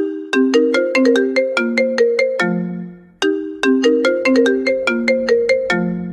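iPhone ringtone melody: a quick phrase of bright, marimba-like plucked notes that repeats about every three seconds, each phrase ending on a lower note that fades out. A faint low bass comes in near the end.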